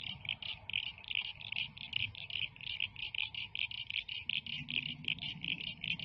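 Crickets chirping in a steady, even rhythm of about five short high chirps a second. A low hum rises faintly beneath them from about four seconds in.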